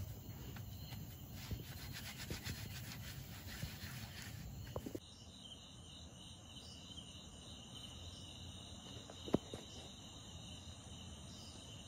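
Crickets and other night insects chirping steadily, with fast pulsing in the first few seconds. A single sharp click comes about nine seconds in.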